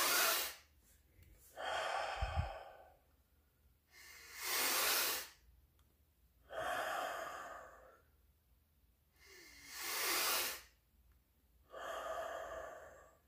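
A man's deep-breathing exercise: three rounds of a long inhale through nose and mouth, taken gently and then finished strong, each followed after a short hold by a gentle exhale through the mouth. The breaths come about every two seconds, with quiet holds between them.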